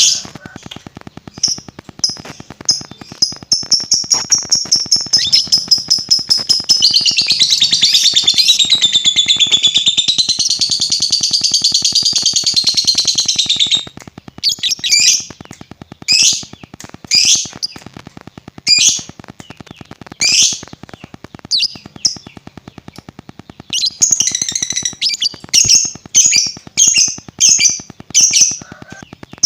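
Lovebird singing: a fast, rattling trill that builds over the first couple of seconds and runs unbroken until about fourteen seconds in, the long trill keepers call ngekek, then breaks off into separate short, sharp chirps.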